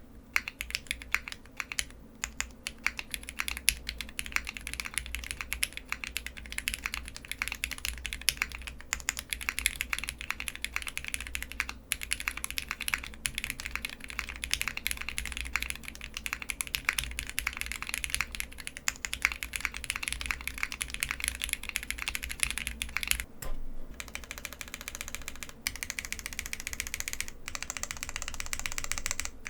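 Typing on a custom mechanical keyboard: SP-Star NaNa switches in an aluminium plate with ePBT keycaps and no sound-dampening foam. A slow, steady clacking speeds up to full-speed typing a few seconds in. There is a short pause near the end.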